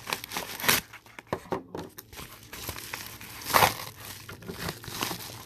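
Packaging crinkling and tearing as a package is opened by hand, in irregular crackles with two louder rips, about a second in and past the middle.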